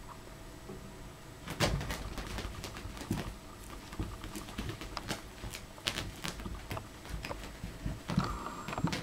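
Irregular soft taps, knocks and scuffles of a puppy playing with rubber toy balls on carpet: paws scrabbling and the balls bumping and being mouthed. A short higher-pitched sound comes near the end.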